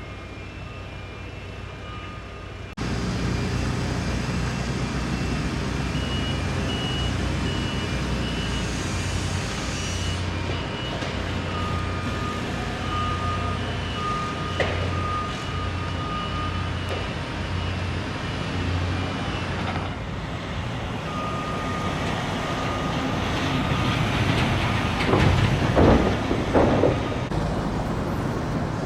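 Heavy traffic and truck engines running near a construction site, with a vehicle's back-up alarm beeping on and off. The noise steps up suddenly about three seconds in, and a louder passing vehicle swells up near the end.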